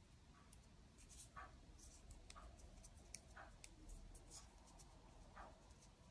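Faint scratchy swishes and tiny clicks of yarn being drawn through stitches with a 2 mm crochet hook, an irregular stroke every second or so.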